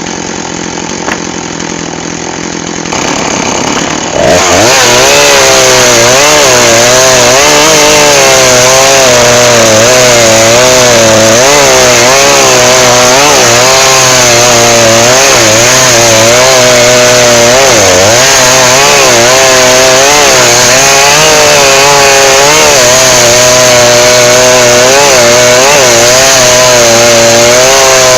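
Two-stroke chainsaw idling, then opened up to full throttle about four seconds in and held there, its engine pitch wavering up and down as it saws through firewood.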